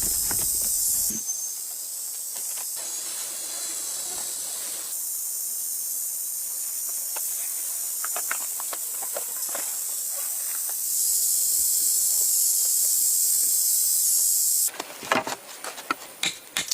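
Steady, high-pitched chorus of forest insects, with scattered light knocks and rustles of hands at work beneath it. The chorus cuts off suddenly near the end, and sharper clicks and taps follow.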